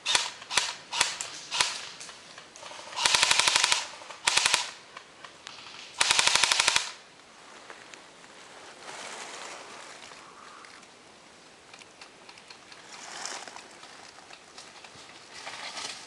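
Airsoft guns firing: a few single shots, then three rapid full-auto bursts, the last and longest about six seconds in. Softer rustling follows.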